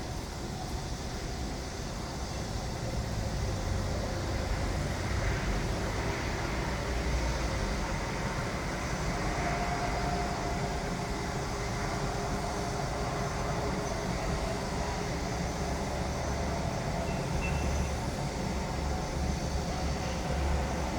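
Steady, continuous low rumble of construction-site machinery, growing a little louder about three seconds in.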